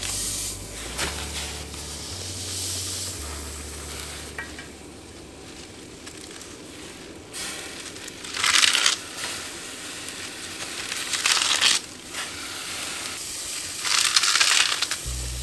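Handfuls of fresh radish greens rustling and crunching as they are pushed down into a pot of boiling water. There are three louder bursts in the second half, over a steady low hiss.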